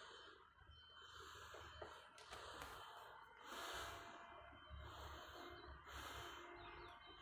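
Faint breathing close to the microphone, in soft irregular swells over a low rumble.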